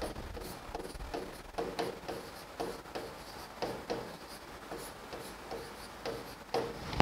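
Chalk writing on a blackboard: an irregular run of short taps and scratches, with a louder tap near the end.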